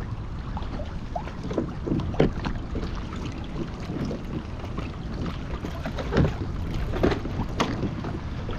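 Wind buffeting the microphone and water lapping at a kayak's hull, with a few short knocks scattered through.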